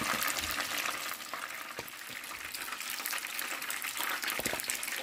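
Batter-coated shrimp deep-frying in a pan of hot oil: a steady crackling sizzle, with a few light knocks.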